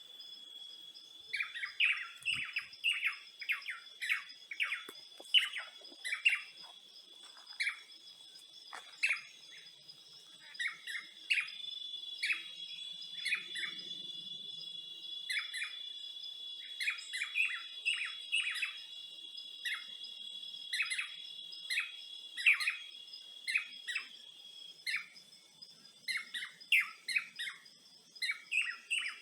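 Birds chirping in many quick, short calls over a steady, high-pitched insect drone. The drone grows louder from about twelve seconds in to about twenty-five seconds in.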